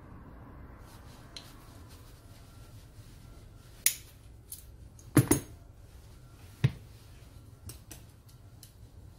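Metal tools, a bearing puller and long-nose pliers, handled and set down on a workbench: a sharp clank about four seconds in, a double clank just after five seconds, another nearly seven seconds in, with small ticks between.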